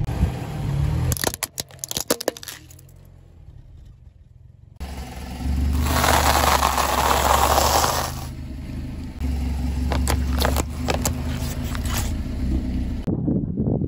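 A car engine running low as a tyre rolls slowly over things on asphalt, with sharp cracks and crackling as they are crushed. About six seconds in comes a long spell of loud crackly crunching as the tyre rolls onto bundles of dry rice noodles.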